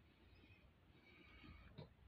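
Near silence: faint room tone with a low hum, and one faint click near the end.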